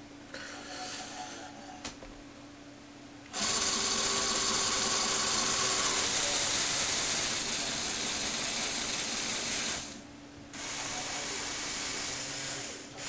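Lego Technic motor and gear train whirring as it tilts and turns the model car on its mount. It starts about three seconds in, stops for about half a second near the ten-second mark, then runs again. A couple of clicks and a short, quieter whir come before it.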